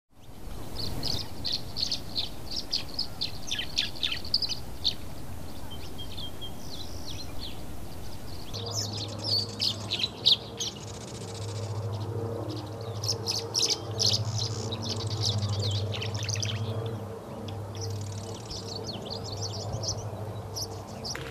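Tree swallows chirping and twittering in quick runs of short high notes. From about a third of the way in, a low steady mechanical hum comes and goes underneath.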